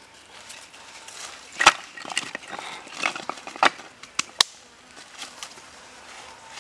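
Split pieces of firewood knocking together as they are set down on a pile: a handful of sharp, irregular wooden clacks, the loudest about two seconds in.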